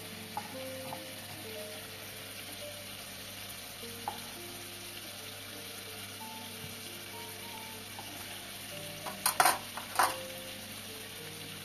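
Soft background music of slow single notes over a steady hiss, with a few sharp knocks and clicks of a kitchen knife as cherry tomatoes are cut on a wooden board. The loudest knocks come in a quick cluster about nine to ten seconds in.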